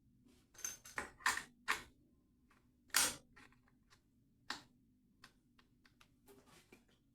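Sharp clicks and knocks of hand tools and fittings being worked on a kitchen sink tap: a quick cluster of clicks in the first two seconds, a louder knock about three seconds in, another about four and a half seconds in, then a few faint ticks.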